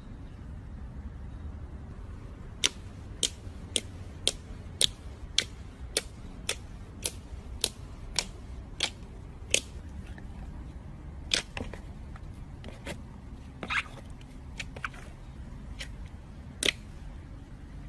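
Slime being pressed and squeezed, giving sharp popping clicks about twice a second for several seconds, then a few irregular pops, over steady low background noise.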